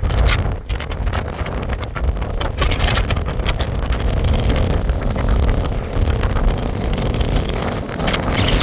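Gale-force wind buffeting the microphone: a loud, continuous low rumble with rough rushing gusts.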